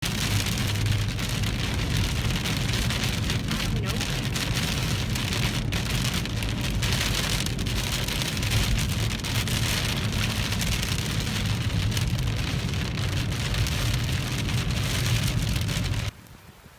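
Steady rain falling, a dense even hiss with scattered drop ticks over a low steady hum; it cuts off abruptly shortly before the end.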